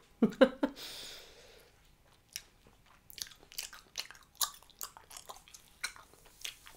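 Bubble gum being chewed: a run of sharp, wet clicks and smacks several times a second. It is preceded by a short vocal sound and a breath in the first two seconds.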